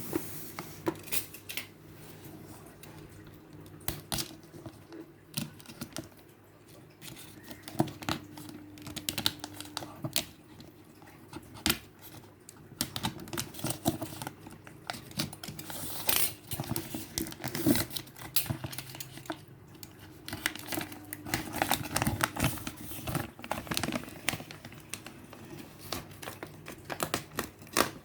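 Packaging being handled and opened: irregular clicks, taps and crinkling of cardboard and plastic, over a faint steady low hum.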